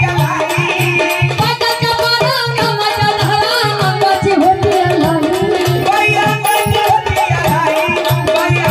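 Marathi gavlan folk song played live and loud: a woman sings through much of it over a steady beat of drums and jingling metal percussion.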